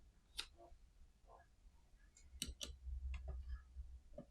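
Small screwdriver bits clicking as they are handled and tried for size in a small screw head, a few scattered light clicks.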